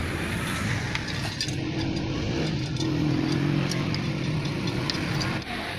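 A motor vehicle engine runs steadily, growing a little louder through the middle, with scattered light metallic clinks of steel spokes being handled and fitted into a motorcycle wheel's hub and rim.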